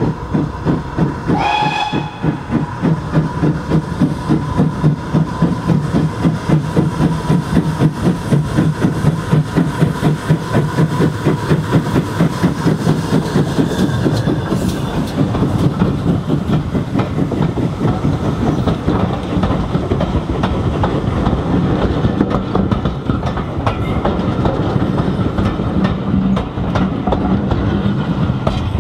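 GWR 14xx 0-4-2 tank engine No. 1450 hauling a four-coach train past, its exhaust beating steadily at about two beats a second, with a short whistle blast about a second and a half in. In the second half the coaches roll by, their wheels clattering over the rails.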